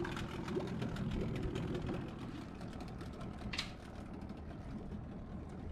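Small dinghy outboard motor idling steadily.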